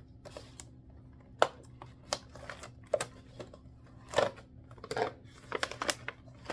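Plastic and cardboard packaging of a yoyo starter pack being handled and pried open: scattered clicks, crinkles and rustles, with a sharp snap about a second and a half in.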